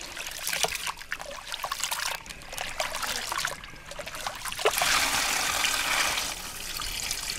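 Rice being washed by hand in an aluminium pot of water: splashing and swishing as the grains are stirred and rubbed. From about five seconds in, the cloudy rinse water is poured out of the pot into a bucket in a steady stream for over a second.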